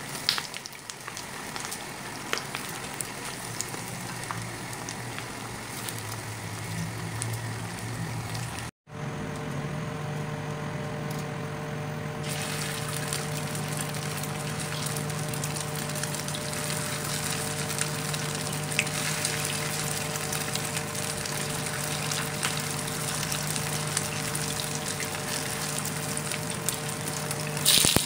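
Hot oil sizzling steadily in a frying pan as minced-fish-stuffed eggplant halves fry, with a few metallic clicks of tongs at the start. After a brief break, oil keeps sizzling around small frying pieces over a low steady hum, with a louder burst of sizzle near the end as a piece of green chili goes into the oil.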